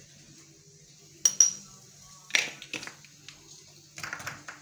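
A metal spoon clinking and tapping against a frying pan as spices are added: two sharp, ringing clicks about a second in, another about halfway, and a quick run of small taps near the end.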